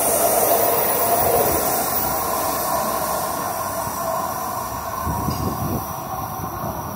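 Stockholm metro train pulling away from the platform into the tunnel, its rumble fading steadily, with a thin squeal of wheels on rail.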